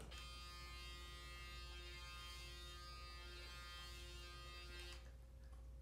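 Cordless electric shaver running, a faint steady buzz held against the hair, switching off about five seconds in.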